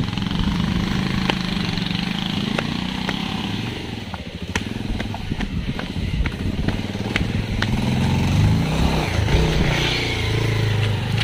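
Motorcycle engine running under way, its pitch wavering, dipping around the middle and rising again in the second half, with scattered sharp clicks.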